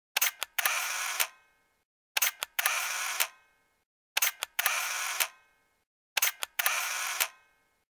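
Camera shutter firing four times, about two seconds apart; each release is a couple of sharp clicks followed by a longer mechanical sound lasting about half a second.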